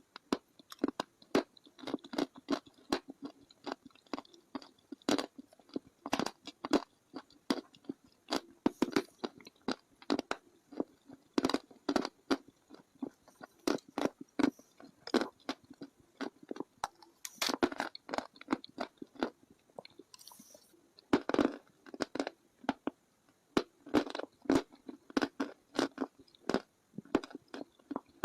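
Close-miked crunching and chewing of hard, brittle chalk or slate-pencil material in the mouth: irregular sharp crunches several times a second, with a few louder bites.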